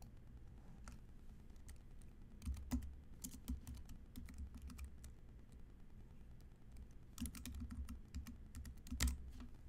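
Typing on a computer keyboard in two short runs of keystrokes, one starting about two and a half seconds in and the other about seven seconds in, with a single louder click near the end.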